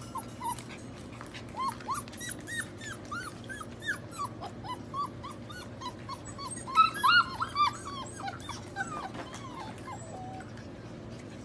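Golden retriever puppies whimpering and yipping: many short, high-pitched cries in quick succession, busiest and loudest about seven seconds in.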